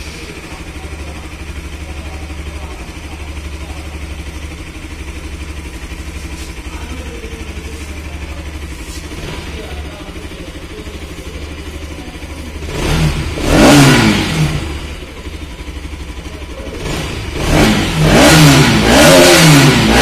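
Bajaj Pulsar RS200's single-cylinder engine idling steadily, then revved: one blip of the throttle about two-thirds of the way through, then several quick rises and falls in revs near the end. It is running after a valve clearance adjustment meant to cure a ticking valve sound and misfiring.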